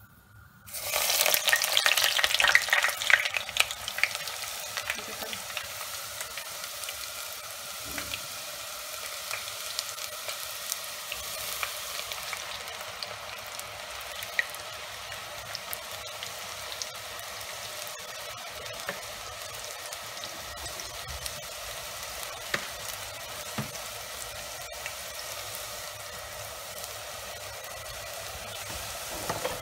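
Sliced eggplant (brinjal) deep-frying in hot oil in a pot. A loud burst of sizzling comes as the pieces go in, about a second in, and settles into a steady sizzle with scattered crackles.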